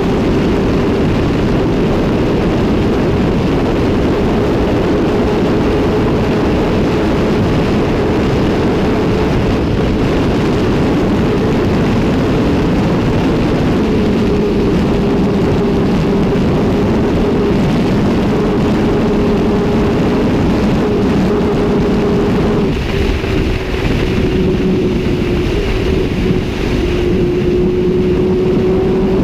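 Sport motorcycle engine held at steady high revs at speed, with heavy wind rush. About three-quarters of the way through, the revs dip and waver briefly before settling again.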